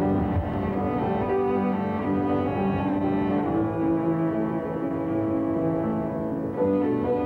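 Background music of bowed strings playing slow, long held notes that change pitch every second or so.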